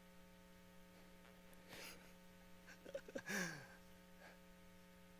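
Near silence with a steady electrical hum from the sound system. About three seconds in there is a brief, faint vocal sound.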